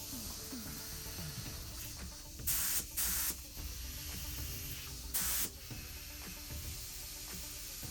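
Compressed-air paint spray gun set to about 25 psi, triggered in three short hissing bursts: two close together about two and a half seconds in, a third about two seconds later.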